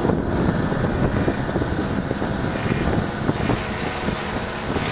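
Eton Viper 50cc kids' quad engine running steadily as the quad comes along a dirt track, with wind noise on the microphone.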